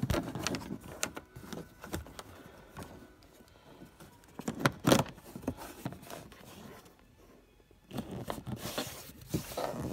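Handling noise from fitting a tweeter and its wiring into a car dashboard: wires and hard plastic scraping and rustling, with scattered clicks and one sharp click about halfway through as the tweeter is pushed down into its dash opening.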